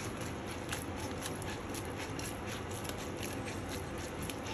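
Pasta and shrimp being tossed with metal tongs in a stainless steel pan: irregular light clicks and ticks, several a second, over a steady low hiss.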